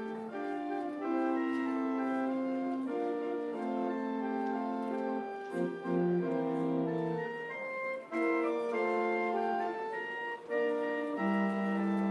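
Organ playing held chords that change every second or so.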